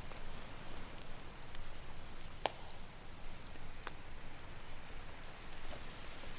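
Campfire crackling, with scattered sharp pops, the loudest about two and a half seconds in, over a steady wash of ocean surf.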